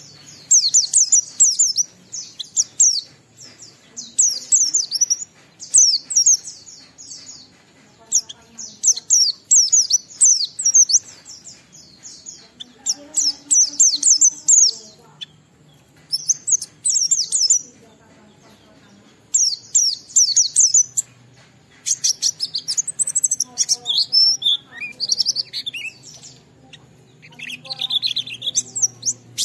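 White-eye (pleci) singing in rapid, high twittering phrases of a second or two, with short breaks between them. From about two-thirds of the way through, the song turns slower and more varied, with lower notes mixed in.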